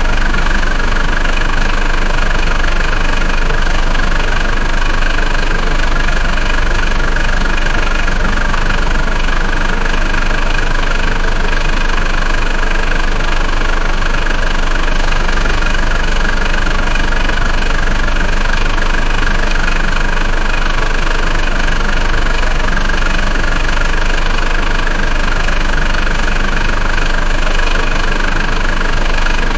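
Diesel engine running steadily at an even speed.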